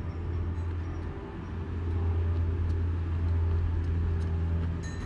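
Low, steady rumble of road traffic that swells about two seconds in.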